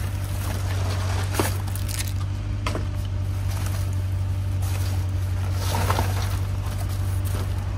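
Steady low mechanical hum throughout, with a few sharp clicks and rustles of items being handled in a dumpster, the loudest about six seconds in.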